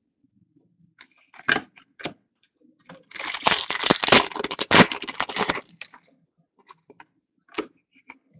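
Hockey trading cards and their packaging being handled: a few light clicks and taps, then about two and a half seconds of dense crinkling and rustling, then a couple more taps near the end.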